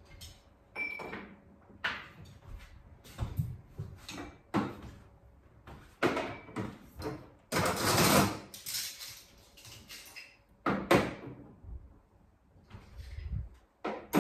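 Metal cutlery being laid out on a table: a series of separate clinks and knocks, with a longer clatter about eight seconds in.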